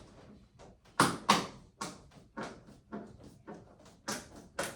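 Irregular sharp clicks and knocks, about ten of them, as a locking strip is pressed down into the channel that holds a display-case panel. The loudest come about a second in and near the end.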